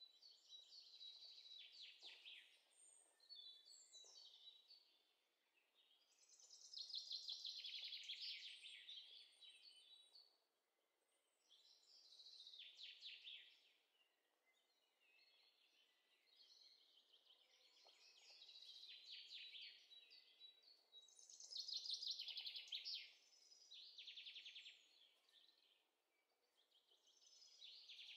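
Faint songbird singing: phrases of rapid, high trilled notes a few seconds long, repeated with short pauses between them.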